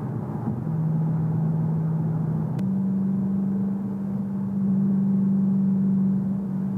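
The supercharged 5.8-litre V8 of a 2014 Shelby GT500 running steadily while driving, a continuous exhaust drone whose pitch steps up slightly about two and a half seconds in.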